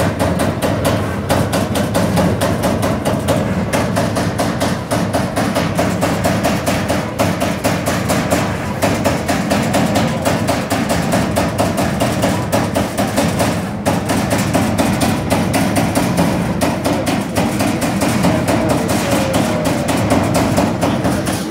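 Servo-driven CNC turret punch press punching a steel sheet: a rapid, even run of sharp metallic strikes, several a second, as the sheet steps between hits.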